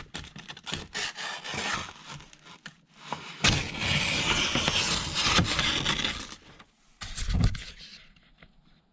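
Heavy paper rustling and scraping as it is handled and pressed against a surface, with a louder continuous stretch of scraping in the middle and a short thump near the end.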